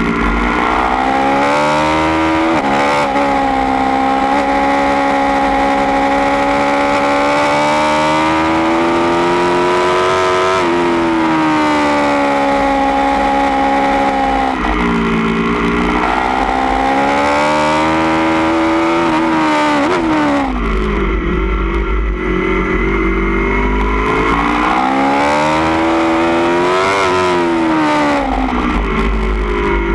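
2016 Aprilia Tuono V4 1100 Factory's V4 engine, through a baffled Austin Racing GP1R exhaust, at track speed from onboard the bike. Its pitch climbs under hard acceleration and drops away sharply several times as the throttle is shut for corners, then climbs again.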